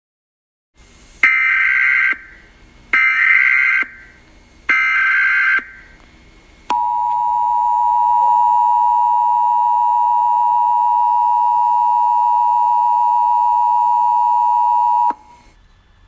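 Emergency Alert System SAME header: three short bursts of warbling two-pitch data sound, each about a second long with a short gap between, followed by the EAS two-tone attention signal, a steady two-pitch tone held for about eight seconds and cut off abruptly. Together they mark the start of an EAS alert, here a civil danger warning.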